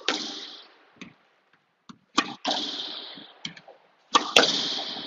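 A squash ball being driven with a Tecnifibre Carboflex X-Top racket, three times about two seconds apart. Each is a sharp crack of racket on ball, quickly followed by the ball hitting the front wall and ringing in the echoing court, with a few light knocks between the shots.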